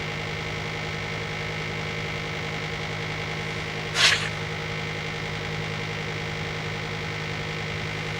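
Panasonic air-conditioner outdoor unit running noisily: a steady hum with several constant whining tones from the compressor and fan motor, the abnormal noise blamed on a dry fan-motor bearing and on the compressor. A short burst of hissing noise sounds about four seconds in.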